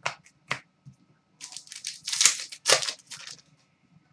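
Trading cards being handled: two short card flicks, then a run of rustling, sliding swishes as cards are moved through the hand.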